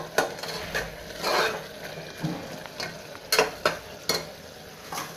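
A steel ladle stirring a simmering vegetable masala in an aluminium pressure cooker: irregular scrapes and clinks of metal on the pot, about eight in all, over a low sizzle of the cooking mixture.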